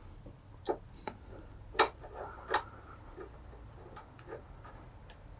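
Irregular sharp clicks and taps of a hand tool working small screws on a metal mounting bar, about four louder ones in the first three seconds and fainter ones after, as the screws are tightened.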